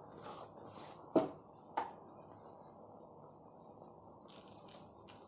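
Two short, sharp knocks of kitchen utensils about half a second apart, a little over a second in, over faint steady background noise.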